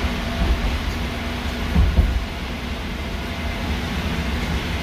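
AirTrain JFK car running along its elevated guideway, heard from inside the car: a steady low rumble with a steady hum, and two louder knocks about two seconds in.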